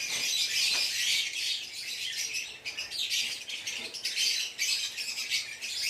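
A flock of lovebirds calling together: a dense, continuous high-pitched chatter of many short overlapping calls.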